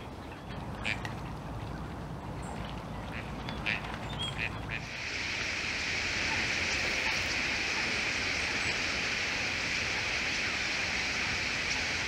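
Dense, continuous chatter of a huge flock of common starlings coming in to roost. It starts suddenly about five seconds in and is the loudest sound. Before it there is only a low rumble with a few short bird calls.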